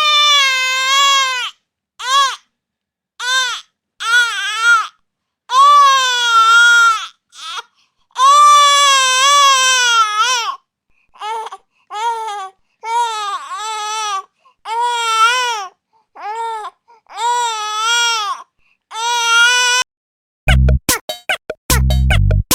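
An infant crying: a string of wailing cries, each rising and falling in pitch, separated by short silences. Near the end a music track with a heavy beat cuts in.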